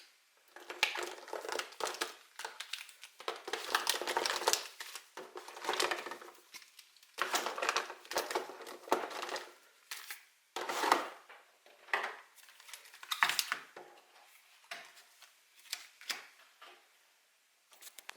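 Packaging from a Pokémon card collection box crinkling and rustling in irregular bursts as it is handled and torn open by hand, with a dozen or so sharp crackles.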